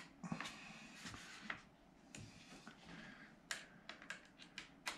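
Faint clicks, taps and rustling from handling small parts and hardware during assembly, with a quick run of clicks near the end.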